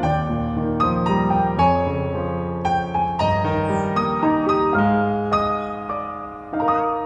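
Background piano music: a melody of separate, decaying piano notes over lower chords.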